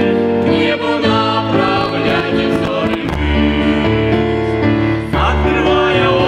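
Christian worship song with keyboard accompaniment and voices singing.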